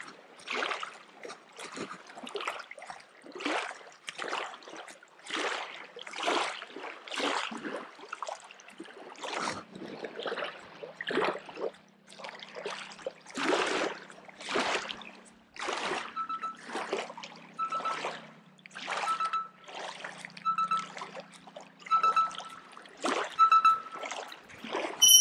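Small waves lapping and splashing against a rocky shoreline, one wash about every second in an uneven rhythm.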